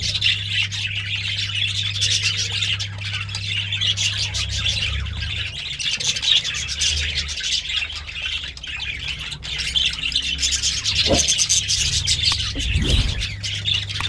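Budgerigars chirping and chattering continuously, over a steady low hum.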